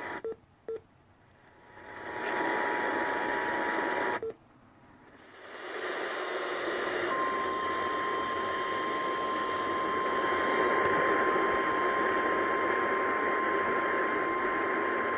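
Static-laden radio reception that cuts out almost to silence twice in the first six seconds, with a few short clicks as it does, then comes back as a steady hiss. About seven seconds in, a single steady tone just above 1 kHz sounds under the static.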